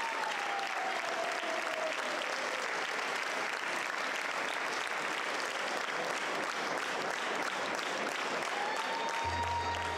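Audience applauding steadily. Near the end, music begins.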